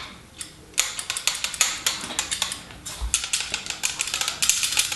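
Invert Mini electronic paintball marker clicking rapidly as its newly fitted spring-return trigger is pulled over and over, a quick run of sharp clicks, several a second, starting about a second in with a short break near the middle.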